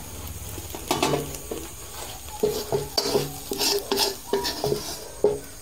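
Metal spoon scraping ghee-roasted grated carrot out of a pan and knocking against a steel plate: a run of irregular clinks and scrapes, busiest from about halfway in, over a low steady hum.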